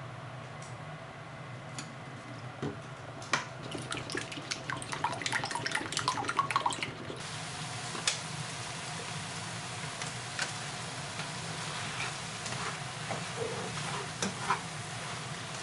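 Quick, irregular clicking of a utensil against a plastic bowl of raw eggs. After a cut, a stir-fry sizzles steadily in a frying pan, with occasional taps of silicone tongs on the pan.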